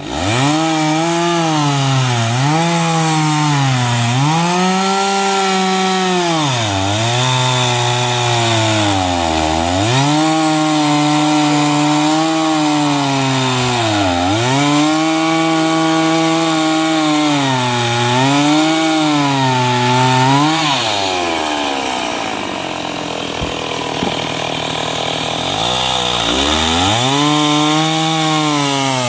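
Stihl 028 two-stroke chainsaw cutting through a log, its engine pitch dropping again and again under load and climbing back as the chain bites and frees. About two-thirds of the way through it falls to a lower, quieter speed for a few seconds, then revs up again near the end.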